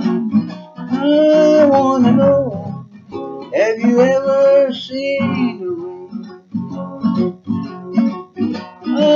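Acoustic guitar strummed in a steady rhythm while a man sings the chorus in long, drawn-out phrases.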